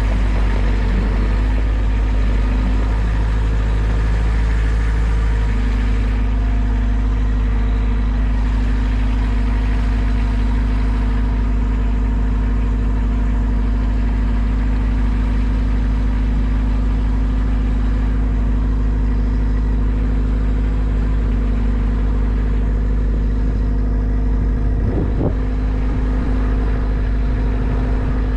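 A large engine running steadily at a low, even speed, like an idle, with a small shift in its pitch about five seconds in.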